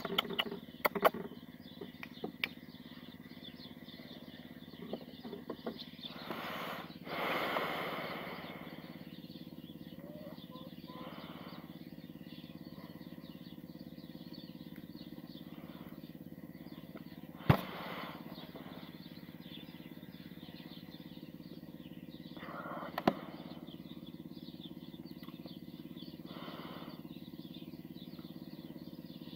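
A steady low mechanical hum, with a few sharp clicks near the start, a brief rustle about seven seconds in, and two more single clicks later on.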